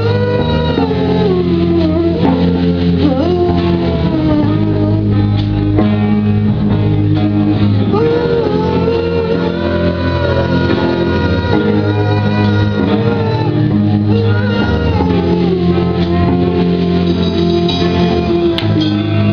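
Live rock band playing a heavy grunge song, with distorted electric guitars and bass under a sung lead vocal that bends in pitch.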